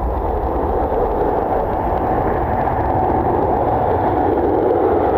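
Jet airliner engines roaring steadily, growing a little louder toward the end, over a low rumble of wind on the microphone.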